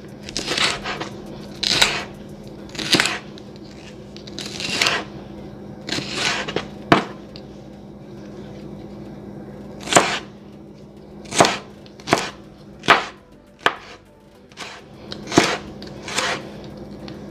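A kitchen knife slicing a red bell pepper into strips on a plastic cutting board. Each cut ends in a sharp knock on the board, at an uneven pace of roughly one a second, with a pause of a few seconds midway.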